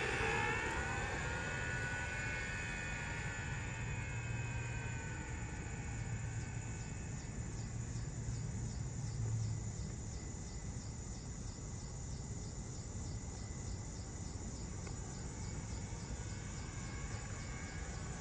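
Bezgar HM101 RC car's electric motor whine falling in pitch and fading over the first few seconds as the car slows after a pass. After that, insects chirping in a steady pulsing rhythm, about three a second, over a low hum.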